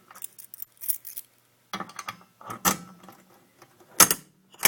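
A bunch of keys jangling and clinking as they are handled and sorted, in irregular clusters of clicks, with a sharper knock about four seconds in.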